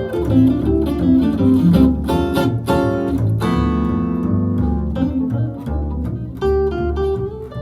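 Live jazz guitar and bass playing an instrumental passage without vocals: the guitar plays chords and single-note lines over a low bass line.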